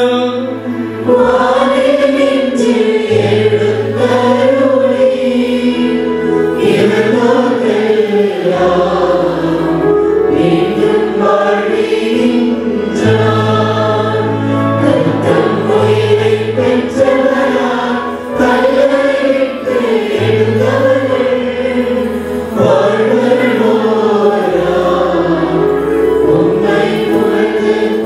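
Church choir singing a hymn over an instrumental accompaniment whose held bass notes change every second or two.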